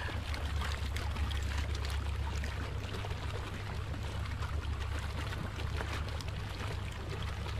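Water splashing and pouring steadily at the surface, churned white against the floating cradle, over a steady low rumble.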